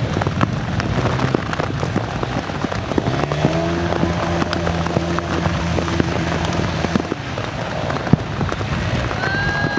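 Heavy rain pattering steadily. A Honda CRF250L off-road police motorcycle's single-cylinder engine is heard at a steady pitch from about three seconds in until about seven seconds.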